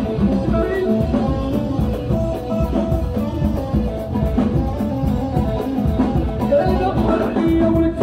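Live Moroccan chaabi band playing an instrumental passage: a bowed violin melody over a drum kit with a busy, steady beat.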